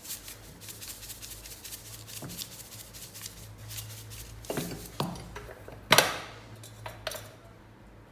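Cooking pot and utensils clattering as the remaining meat is put into the pot: a run of small clicks with a few sharper knocks, the loudest about six seconds in. A steady low hum runs underneath.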